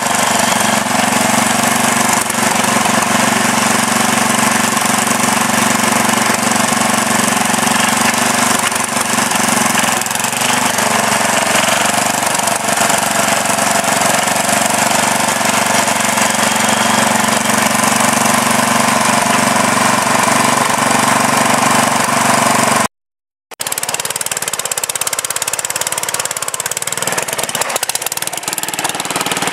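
Sears Suburban garden tractor's engine running steadily while the tractor pushes dirt with its front blade. The sound cuts out suddenly for a moment about three-quarters of the way through.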